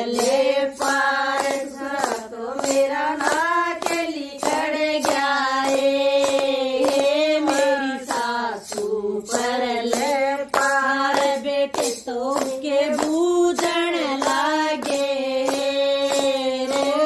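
A group of women singing a devotional bhajan together, clapping their hands to a steady beat.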